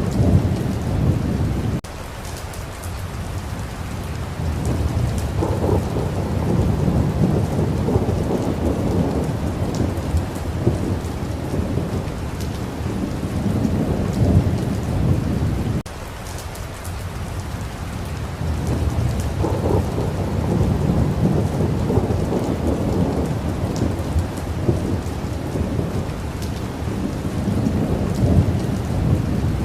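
Steady rain with rolling thunder, low rumbles swelling and fading one after another. The rumbling cuts back abruptly twice, about two seconds in and again near the middle, then builds again.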